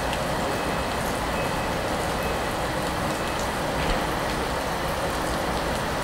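Steady rushing hum of an ICE 3 (DB Class 403) electric high-speed train standing at the platform, its cooling and ventilation fans running at a constant level.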